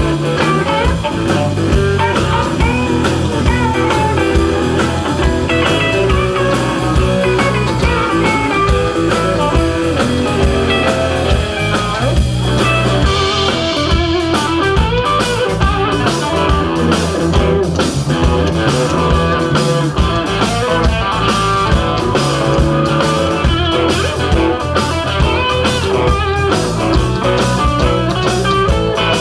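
Live blues-rock band playing an instrumental passage: electric guitars over bass guitar and drums, with no singing. The drums get brighter and busier about halfway through.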